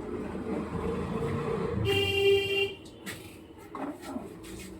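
Street traffic passing, with a single vehicle horn honk lasting under a second about two seconds in, the loudest sound; a few light knocks follow.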